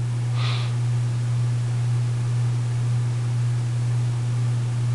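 Steady low electrical hum with a constant hiss behind it, with a faint brief swish about half a second in.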